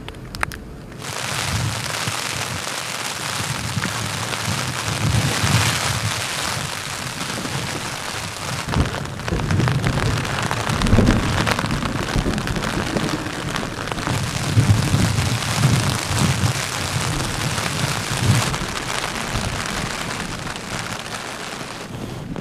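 Heavy rain pouring on a tent, with low rumbles of thunder and gusts; it starts suddenly about a second in.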